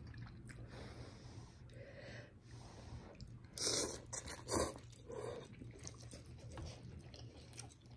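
A person slurping a long strand of instant noodles into the mouth, with two loud slurps about halfway through, amid soft wet chewing.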